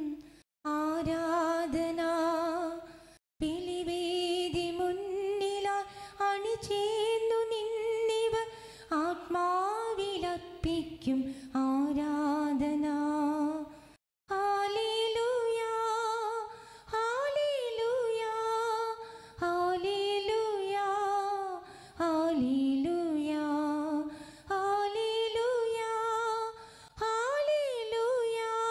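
A woman's voice singing a slow hymn solo, with no instrument heard, holding long notes and gliding between them. The sound drops out for a moment three times.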